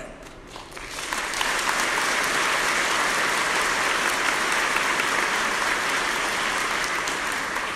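Audience applauding: many hands clapping together, building up about a second in and dying away near the end.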